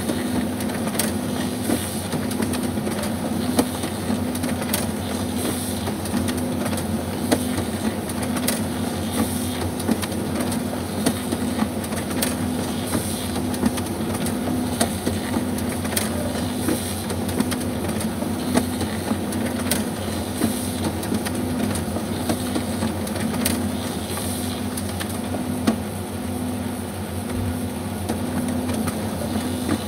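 Kyocera Ecosys laser printer running a double-sided print job: a steady, evenly pulsing mechanical hum with sharp clicks about once a second from the paper-feed mechanism.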